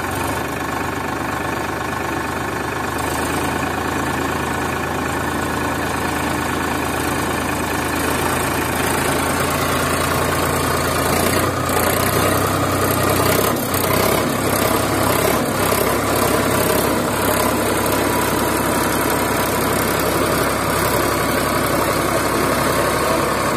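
Sonalika DI 740 tractor's diesel engine running under load as the tractor, stuck in deep mud with its rear wheels caked, tries to drive free. The engine runs steadily, and its note shifts around the middle.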